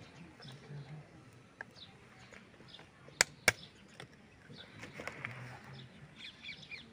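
Hand work on a Yanmar harvester's HST (hydrostatic transmission) unit: two sharp taps about a third of a second apart, a tool or part knocking against the metal housing, among fainter small clicks. Birds chirp faintly behind.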